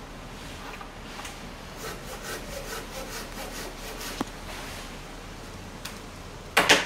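A hand pruning saw cutting through a maple limb: rhythmic rasping strokes, about three a second, strongest for a couple of seconds in the middle. A short, much louder noise comes near the end.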